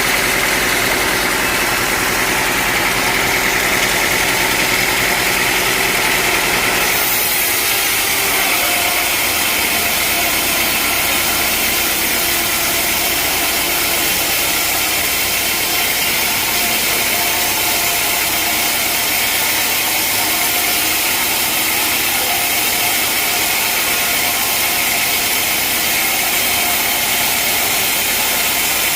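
Sawmill machinery running steadily with a loud engine hum. About seven seconds in, the low hum fades and a brighter, even hiss takes over.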